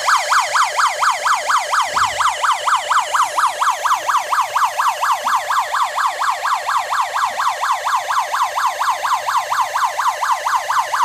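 Small electronic police-siren speaker module mounted on a miniquad drone, sounding a fast yelp: the pitch sweeps up and down about four times a second.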